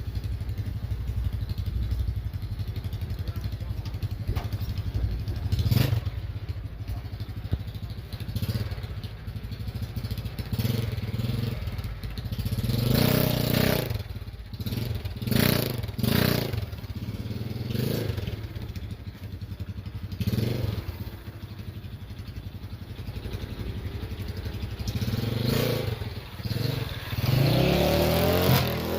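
Motorcycle engine running steadily, with louder surges through the second half and a rev that rises in pitch near the end.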